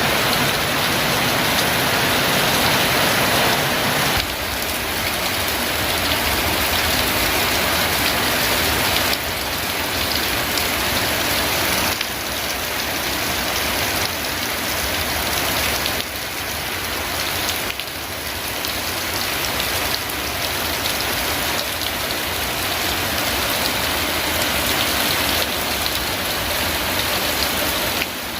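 Heavy rain pouring down and drumming on surfaces, a dense steady hiss that shifts abruptly in level every few seconds.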